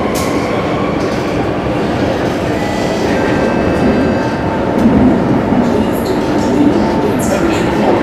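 MRT train running through a tunnel, heard from inside the carriage: a steady rumble of wheels on rail. A thin, high wheel squeal joins about three seconds in, with a few light clicks near the end.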